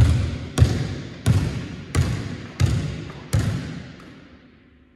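A basketball dribbled on a wooden gym floor: six bounces about two-thirds of a second apart, each echoing around the large hall, the last about three and a half seconds in before the echo dies away.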